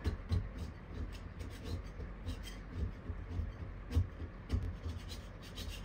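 Hand scraper scraping old wallpaper and paint off a wall in short, uneven strokes, with a few sharper scrapes standing out.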